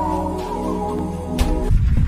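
Music with sustained, held notes; a sharp click about a second and a half in, and shortly after the music breaks off into a different, irregular low sound.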